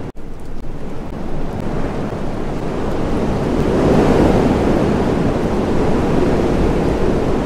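Wind gusting through a tree's leaves and branches: a steady rushing that swells about four seconds in and stays up.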